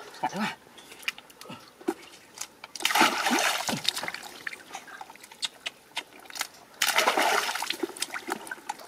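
Muddy water splashing as a plastic basket is dipped and scooped through it, in two loud bursts about three and seven seconds in, with small drips and splashes between them.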